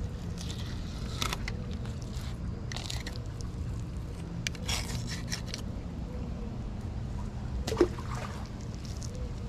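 Fillet knife cutting through the flesh of a cero mackerel, with wet, squishy slicing and scraping sounds in several short strokes over a steady low background rumble.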